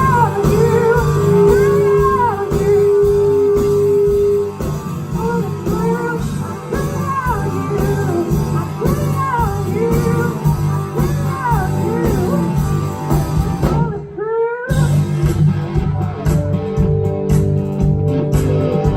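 Live blues-rock band playing an instrumental break: an electric guitar lead with bent notes over bass and drums. About fourteen seconds in, the band stops for a moment under a quick rising guitar run, then comes back in.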